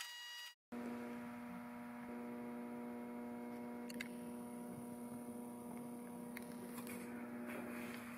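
Low, steady electrical mains hum with a few evenly spaced overtones. It drops out briefly just under a second in, and there are faint ticks about four and six and a half seconds in.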